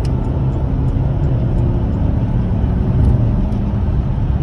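Porsche Cayenne heard from inside the cabin at speed: a steady, loud low rumble of engine and road noise.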